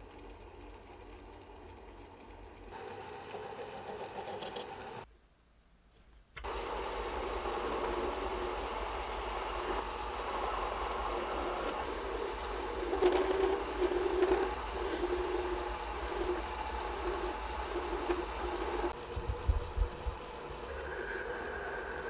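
Small homemade mini lathe running, its electric motor and spindle turning steadily while a hand-held cutter shapes a brass workpiece. The sound breaks off for about a second early on, then runs on with changes in tone between takes.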